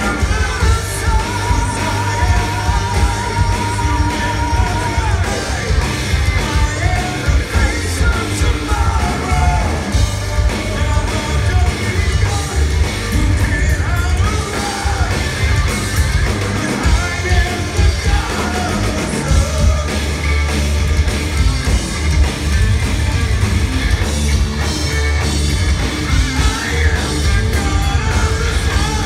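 Progressive metal band playing live through a venue PA, heard from the audience: a male singer over distorted guitar, bass, keyboards and drums with a heavy low end. A long held note with vibrato stands out about a second in.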